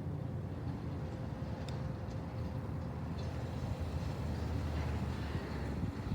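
Road traffic: a motor vehicle passing, with a low rumble and tyre noise that swells about four to five seconds in.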